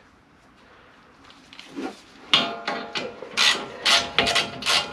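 Ratchet wrench clicking in short rasping strokes, roughly two a second after a quiet start, loosening a 17 mm brake caliper bolt.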